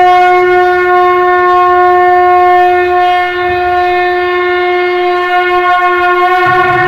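One long, loud, steady note blown on a horn-like wind instrument, with a low rumble joining near the end.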